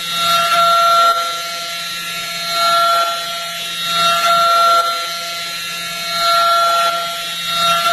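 DMG MORI vertical machining centre milling a small metal part: a steady high spindle whine, growing louder about every second and a half as the cutter passes back and forth through the cut.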